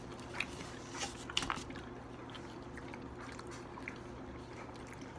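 People chewing and biting into chicken: a few short wet clicks and smacks, most of them in the first second and a half, over a steady low hum.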